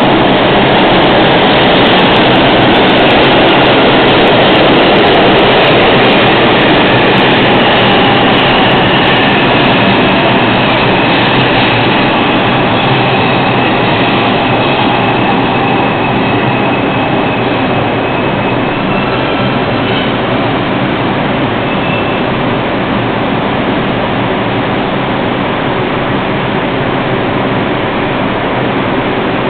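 NYC subway R142 train running through the station, a steady loud rumble of wheels on rails that slowly gets quieter as the cars move off. A faint high whine comes and goes in the middle.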